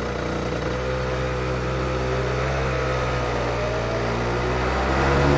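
Kart engine running at fairly low, steady revs as the kart rolls along, its pitch dipping slightly and then climbing a little near the end.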